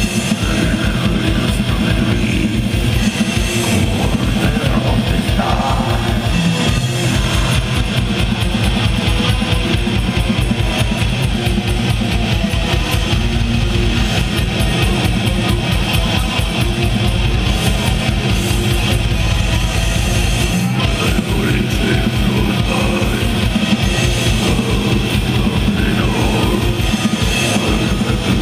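Black metal band playing live over a PA, heard from the crowd: distorted electric guitars over a fast, steady kick drum, which drops out briefly a few times.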